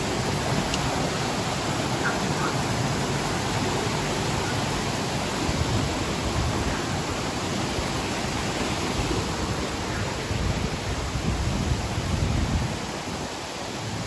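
Man-made waterfall: water rushing over a rocky cascade in a steady hiss, with bursts of low rumble in the second half; the rush grows quieter near the end.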